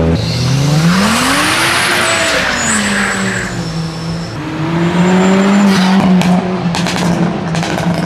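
Car engine revving: the pitch climbs and falls back within the first few seconds, then climbs again and holds. A loud hiss runs over the first rev, and a string of sharp cracks comes in the second half.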